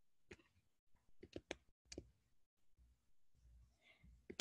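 Near silence broken by a handful of faint, scattered clicks: one a moment in, a quick run of three about a second and a half in, one near two seconds, and a couple near the end.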